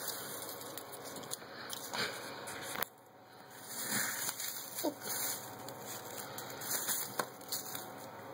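Shredded paper strips rustling and crackling as a cat paws and rolls in the pile and a hand stirs it, in irregular swells with small clicks.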